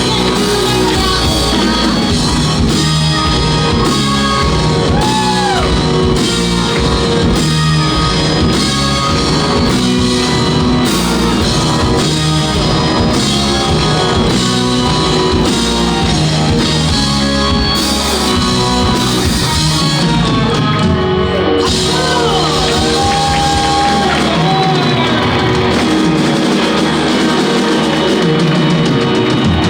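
Live rock band playing: electric guitars, bass and drum kit, with a singer's voice over them.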